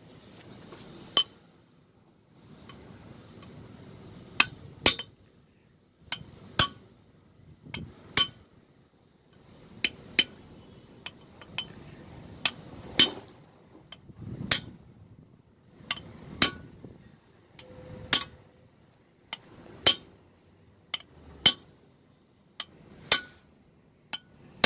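Ball-peen hammer striking a metal drift held against a crane's rear wheel-hub inner seal: about two dozen sharp metallic taps at irregular intervals, roughly one a second, with soft handling noise between them. The taps are driving the seal home into the hub.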